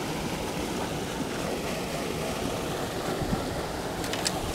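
Steady rushing noise of water pouring through a dam spillway, with a couple of faint light clicks near the end.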